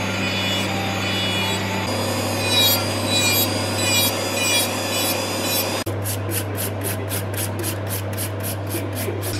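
Electric nail drill running with a steady hum, its bit grinding old gel polish off fingernails. From about six seconds in, a quick regular scratching of about four strokes a second.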